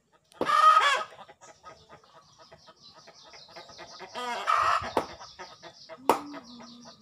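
Chickens clucking, with a loud squawking call about half a second in and another call around four and a half seconds in. A fast run of faint high chirps lies between them.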